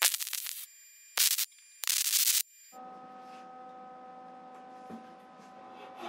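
Three short MIG tack welds on steel, each a brief crackling hiss, in the first two and a half seconds. After that comes a quieter steady hum with a few faint tones.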